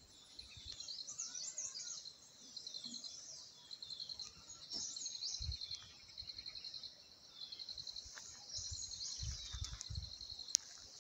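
Small birds chirping and twittering in short high phrases over a steady, high, rapidly pulsing insect trill, with a few faint low thumps.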